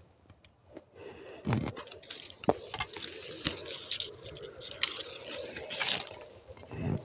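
Apple tree leaves and twigs rustling as branches are pushed through and handled, with scattered irregular clicks and small snaps.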